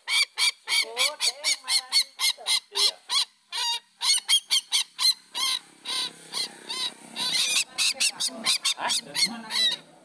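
Lure recording of sintar (ruak-ruak Papua) calls: a fast run of short, nasal honking notes, several a second, with a brief pause about three and a half seconds in.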